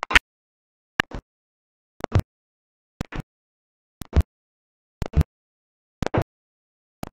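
Short fragments of sound, each a click and a brief burst, arriving at an even rate of about one a second with dead silence between: broken live-stream audio that lets only snatches of the room sound through.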